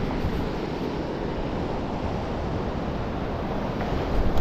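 Wind buffeting the microphone over the wash of sea swell against rocks: a steady rushing noise with a low rumble.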